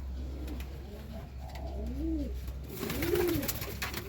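Serbian Highflyer pigeons cooing, a series of rising-and-falling coos about one a second. A hiss joins in after about two and a half seconds.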